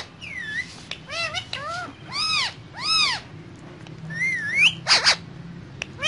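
Indian ringneck parakeets giving a series of whistled calls, each note rising and falling in pitch, with a short harsh screech about five seconds in.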